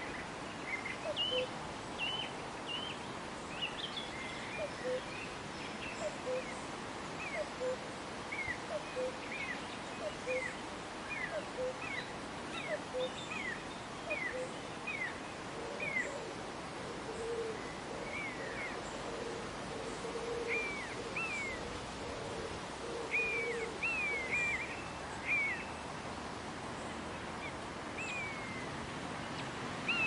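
Birds singing over a steady rush of flowing river water. One bird repeats short, falling whistles, one or two a second, and softer low notes repeat between them. Through the middle stretch a lower warbling joins in.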